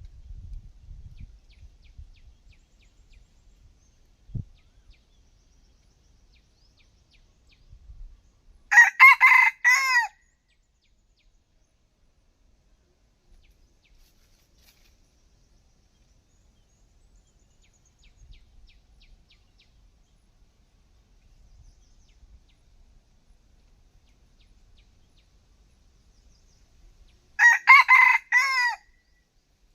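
Rooster crowing twice, each crow about a second and a half long and some eighteen seconds apart. There is a soft low thump a few seconds in.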